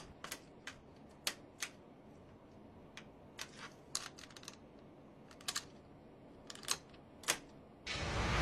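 Faint, irregular clicks and ticks over quiet room tone, then near the end a sudden loud rushing whoosh that swells up.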